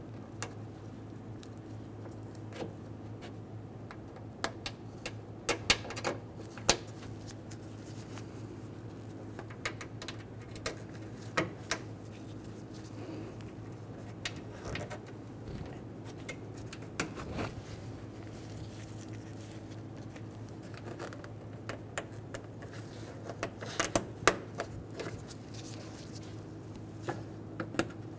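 Plastic push-pin retaining clips being pressed into a plastic radiator cover, with scattered sharp clicks and snaps at irregular intervals over a steady low hum.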